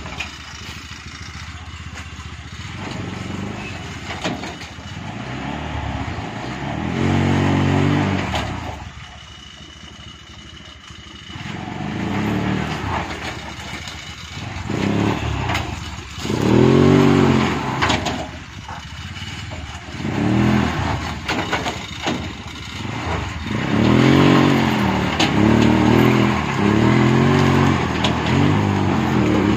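Small petrol engine of a three-wheeled cargo truck running, then revving up and dropping back again and again as it drives over rough, soft orchard ground. The revs come more often in the second half.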